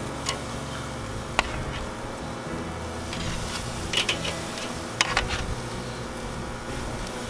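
Several sharp metallic clicks as chicken is laid on the grill grate, about five in all, over a steady low hum.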